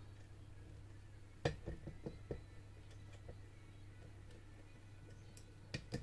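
Small metal clicks and ticks as lock-picking wires and a tensioner are handled in a lock: one sharp click, then a quick run of lighter ticks, and two more clicks near the end, over a faint steady hum.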